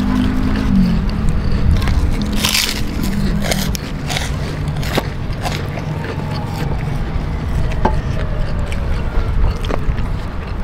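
Mukbang eating sounds: bites and crunching of kerupuk crackers and fried chicken, with sharp crunches scattered irregularly throughout. A low humming drone dips in pitch about a second in and fades out around three and a half seconds in.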